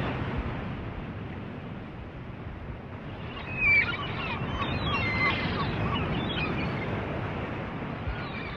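Seaside outdoor ambience: a steady rush of wind and surf with faint, scattered distant calls, and one louder call about three and a half seconds in.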